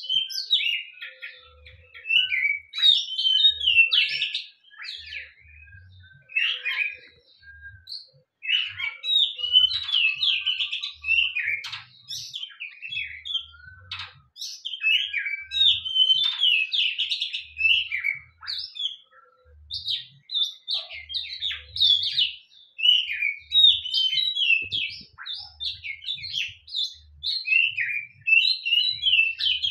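Oriental magpie-robin (kacer) singing: rapid, varied chirps and whistled phrases in bouts of a few seconds separated by short pauses.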